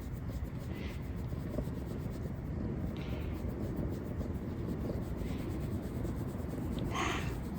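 Orange tabby cat purring steadily while being stroked, with soft rubbing of a hand on fur. A brief breathy sound comes near the end.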